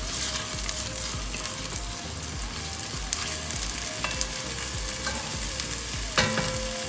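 Chopped onion sizzling steadily in hot oil in an enamelled cast-iron pot while a wooden spatula stirs it, with a few sharper scrapes of the spatula against the pot.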